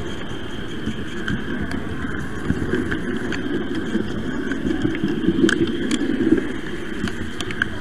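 Model train running along the layout's track, heard from a camera riding on the train: a steady rumble of wheels and motor with a few sharp clicks, a little louder about five to six seconds in.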